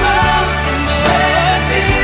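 Background pop music with steady bass, regular drum beats and a wavering melody line.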